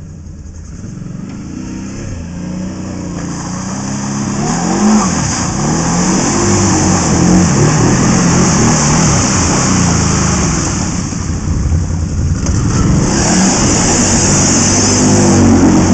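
ATV engine revving up and down again and again, growing louder over the first several seconds, easing off briefly about eleven seconds in, then picking up again.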